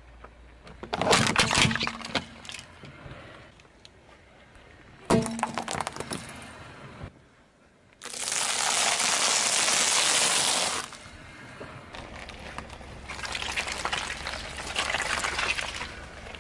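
Car tyre rolling over and crushing things: a red plastic scoop cracks and snaps sharply about a second in and again around five seconds. Then a pile of popcorn crunches loudly under the tyre for about three seconds, with softer crackling and crunching near the end.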